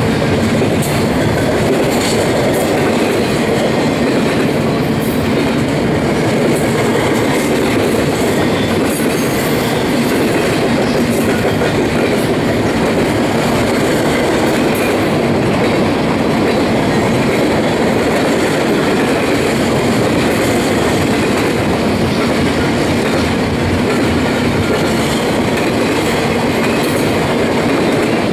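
Double-stack intermodal well cars rolling past at speed: a loud, steady rumble of steel wheels on rail, with scattered clicks from the wheels running over the track.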